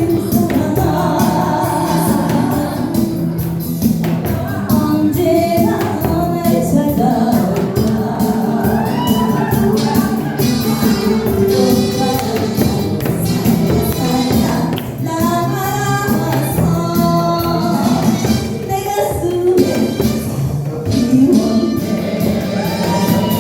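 A singer performing a song over loud accompanying music with a steady beat; the voice moves in phrases of a few seconds above held low notes.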